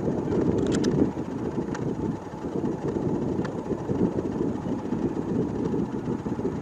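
Delta-wing fighter jet on landing approach with its gear down, its engine heard as a steady low rumble.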